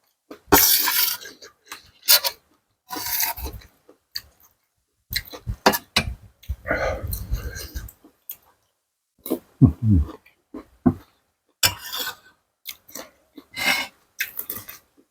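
Close-miked eating sounds of a spicy seafood salad with fresh salad vegetables: crunching, chewing and slurping in short bursts separated by brief pauses, with a short falling hum about ten seconds in.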